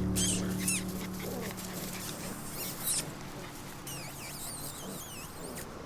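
Giant Schnauzer puppies whining in short, high-pitched, wavering cries, at the start and again in a run near the end, over a low steady hum.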